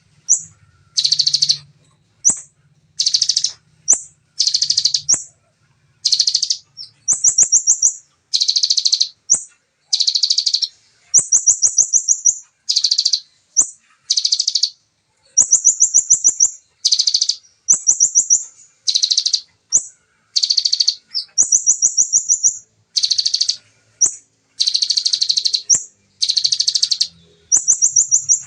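Ciblek (bar-winged prinia) singing fast, rapid-fire 'tembakan' song. Short bursts come about once a second, some a dense buzzy rattle and others a high, quick pulsed trill.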